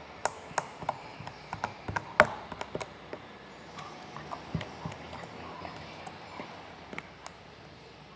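Slime being squeezed and stretched by hand, giving irregular sticky pops and clicks. They are thickest in the first few seconds, with the sharpest snap about two seconds in.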